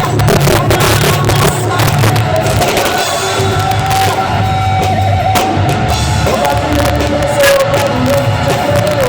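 Band playing a worship song: a drum kit with frequent cymbal and drum hits over bass and long held melody notes.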